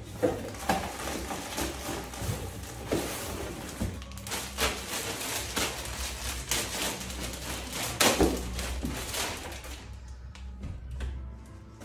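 Plastic bags and wrap crinkling and rustling while a cardboard box is handled, with scattered sharper crackles; the rustling thins out near the end. Background music plays underneath.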